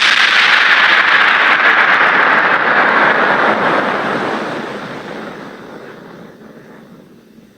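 A loud rushing noise with no pitch that starts suddenly, then fades away slowly over about seven seconds.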